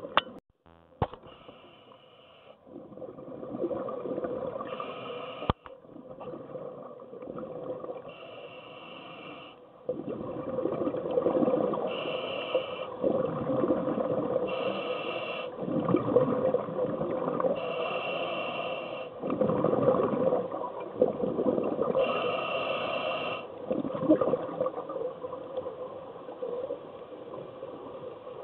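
Scuba diver breathing through a regulator underwater: a short hiss on each inhalation alternates with a longer rush of exhaled bubbles, repeating every few seconds. Two sharp clicks sound near the start.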